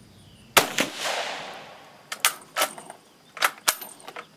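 A single shot from an Italian Vetterli 1870/87/15 rifle converted to 6.5mm Carcano: a sharp crack about half a second in, with an echo dying away over the next second or so. Then four metallic clacks as the rough, far from smooth bolt action is worked.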